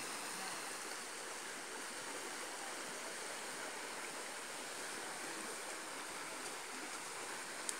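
Steady rush of fast-flowing muddy floodwater in a swollen river, with one small click near the end.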